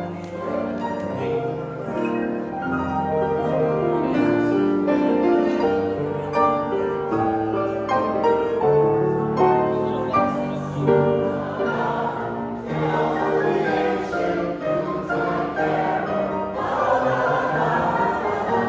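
Choir of men and women singing with piano accompaniment, holding sustained chords that move from note to note.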